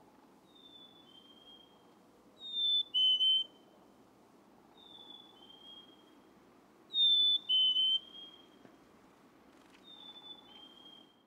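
Black-capped chickadee singing its 'fee-bee' song: clear two-note whistles, the second note lower than the first. It is repeated five times about every two and a half seconds, with louder and fainter songs alternating.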